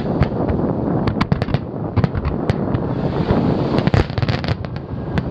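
Aerial fireworks shells bursting in quick succession, a rapid series of sharp bangs over a steady low rumble, thickest around a second in and again near four seconds.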